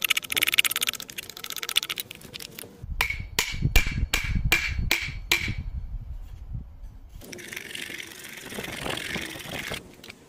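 Hand-tool work at a wooden shaving horse: a quick run of rasping strokes, then about eight sharp knocks that ring briefly, about three a second, over a low rumble, then a stretch of scraping.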